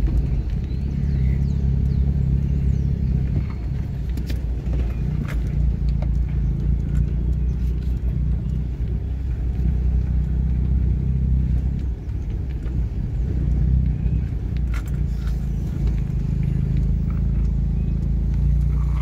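Steady low rumble of a motor vehicle running, with a few faint clicks.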